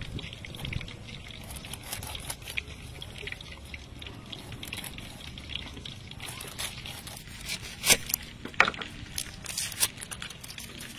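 Large kitchen knife cutting into a peeled pineapple on a wooden board: a run of small, juicy cuts and scrapes, with two louder sharp knocks about two-thirds of the way through.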